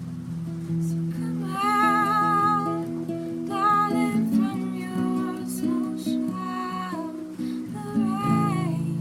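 A song played on a strummed acoustic guitar, with a woman's voice singing several long held phrases with a wavering vibrato over it.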